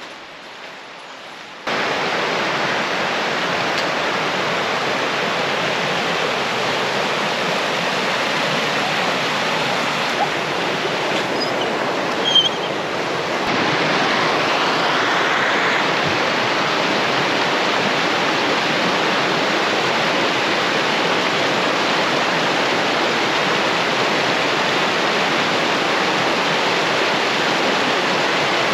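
Snowmelt- and rain-swollen mountain brook rushing at high water, a loud steady rush that starts abruptly about two seconds in and grows a little louder around the middle.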